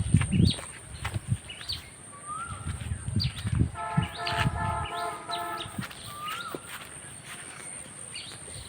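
Birds chirping outdoors, with many short falling chirps and a couple of rising-then-falling calls. A steady high whine runs underneath, and there are low thuds and rumbling in the first half. A pulsing tone with several pitches sounds for about a second and a half near the middle.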